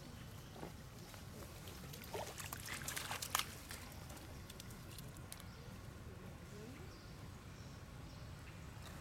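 Macaques splashing and sloshing in shallow pond water as they swim and wrestle, with a burst of sharper splashes about two to three and a half seconds in.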